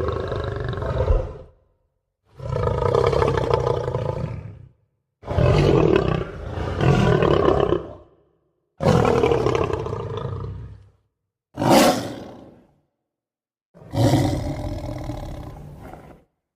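Lion roaring: a series of long, deep roars, each two to three seconds, with a shorter, sharper roar about twelve seconds in. Complete silence falls between the roars.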